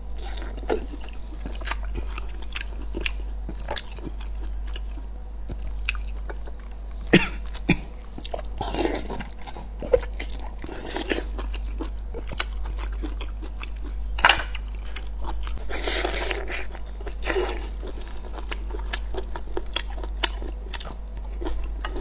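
Close-miked biting and chewing of sea snail meat: irregular wet smacking and crunching mouth sounds, with a few sharp clicks about seven and ten seconds in, over a low steady hum.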